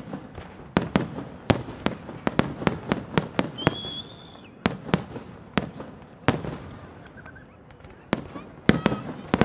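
Fireworks display: aerial shells bursting one after another in quick, irregular succession, a dozen or more sharp bangs, easing off for about two seconds near the end before the bursts start again. A brief high whistle sounds about four seconds in.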